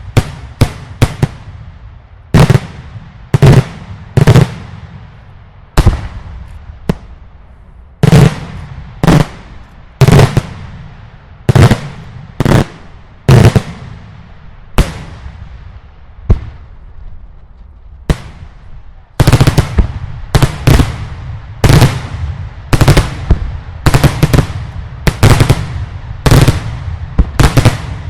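Daylight fireworks display: loud explosive bangs going off about one a second, each with an echoing tail. After a short lull they come quicker and denser near the end.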